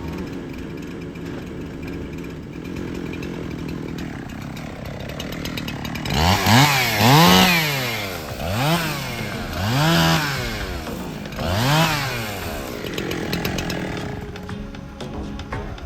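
Chainsaw engine revved up and back down four times in a row, each rev rising and falling in pitch, after a few seconds of steady low hum.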